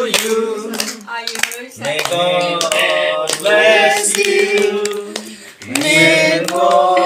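Singing in long held notes, with a short lull partway through.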